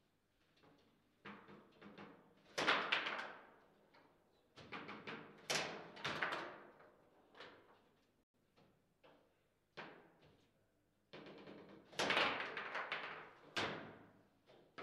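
Table football play: a string of sharp knocks and clacks as the ball is struck by the plastic players and the rods are worked, coming in irregular flurries, loudest about three seconds in and again around twelve seconds.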